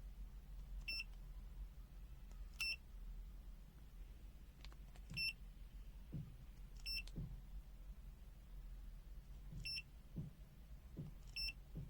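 Fuyi FY129C multimeter's buzzer giving six short, identical high beeps one to three seconds apart, one for each press of its function key as it steps through to the capacitor function. Faint soft clicks of handling come in between.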